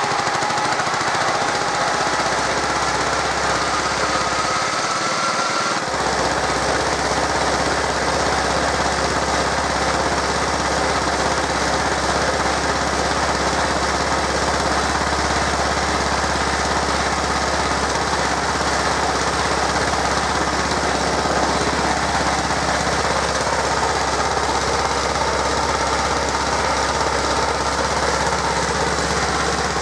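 Engine of a 1968 Stothert & Pitt W28 Mk 1 vibrating roller running steadily through its belt drive during a functional test. A faint whine rises through the first few seconds, then a deep steady hum sets in about six seconds in and holds.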